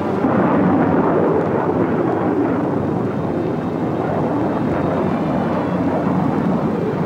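Jet engines of a B-52 bomber in flight: a loud, steady rushing roar with no clear tone.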